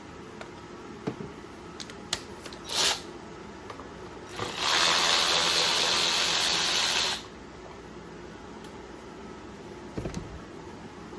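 A small power tool, such as a cordless driver, runs steadily for about two and a half seconds while fasteners are taken out of a motorcycle's rear brake-line bracket. Tool clicks and knocks come before it, and another knock comes near the end.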